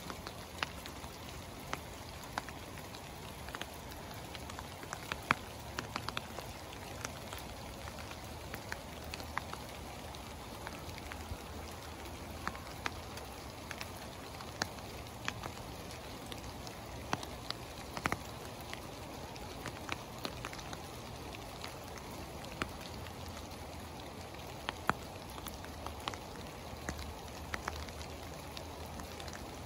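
Small hail falling with rain: a steady hiss broken by many irregular sharp ticks of hailstones striking hard surfaces.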